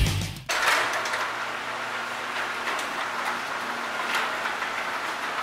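Garage door opener raising a sectional garage door, running steadily with a faint hum. The tail of the intro music cuts off about half a second in.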